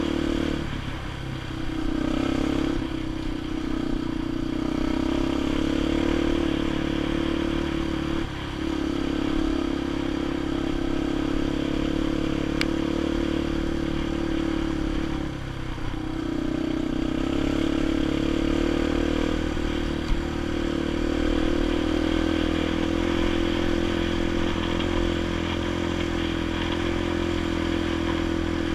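Dirt bike engine running steadily under way, with a steady pitched note and some rattle from the ride. The engine note briefly drops off three times, about one, eight and fifteen seconds in. There is a single sharp click around the middle.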